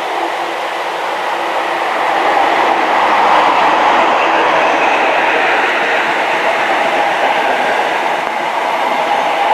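High Speed Train, a Class 43 diesel power car hauling Mark 3 coaches, passing close by. The sound of the train and its wheels on the rails grows louder as the power car draws level, then holds as a steady rumble while the coaches roll past.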